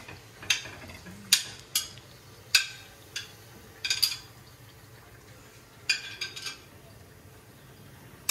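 Metal spoon clinking and knocking against a steel karahi as tomatoes are stirred in it: about a dozen sharp, ringing clinks in irregular clusters, stopping about two-thirds of the way through.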